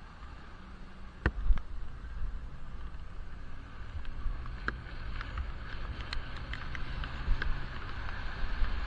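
Riding noise from a helmet-mounted action camera sealed in its waterproof case: a muffled, steady rumble of wind and road. A sharp knock comes about a second in, and light taps are scattered through the second half.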